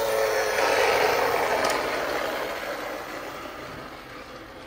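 Toy Mini Cooper police car rolling across a tiled floor after a push, its plastic wheels making a steady rolling noise that fades gradually as it runs away.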